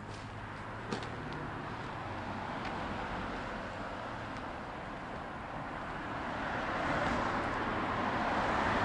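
Road traffic: a steady rush of vehicle noise that grows louder in the last few seconds as a vehicle draws closer, with one sharp click about a second in.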